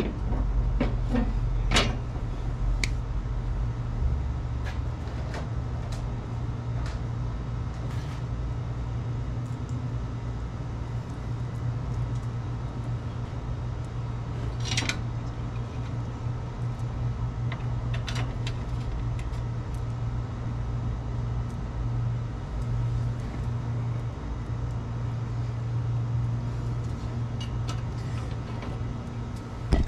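A vehicle engine running steadily as a low drone, with scattered light clicks and knocks over it.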